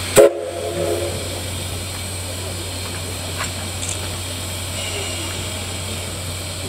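Short blast on the steam whistle of the C11 207 steam tank locomotive: it starts sharply about a quarter second in and sounds for under a second. Afterward a steady low hum and faint hiss carry on.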